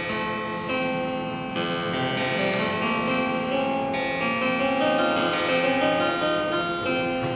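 French-style double-manual harpsichord after Blanchet/Taskin, built by Zuckermann in 2008, played with both hands: a continuous stream of quick plucked notes.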